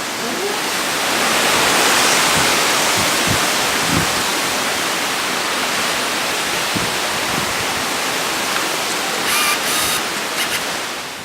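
Hurricane wind and heavy rain making a loud, steady rushing noise, swelling about two seconds in, with a few low thumps of gusts buffeting the microphone.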